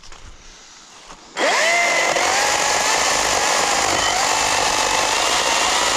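Chainsaw throttled up to high revs, coming in suddenly about a second and a half in and running steadily, cutting a log round into firewood chunks.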